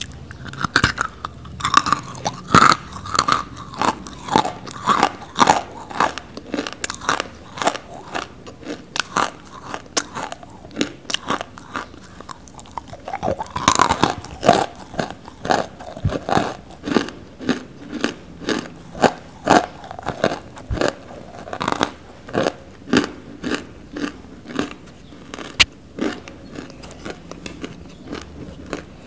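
Close-miked crunching of dry nakumatt edible clay as a person bites and chews it, sharp crunches coming about one or two a second.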